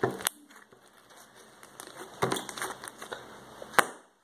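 Slime being squeezed and pulled in the hands, making crackly, sticky popping sounds in a short cluster past the middle, with one sharp click near the end.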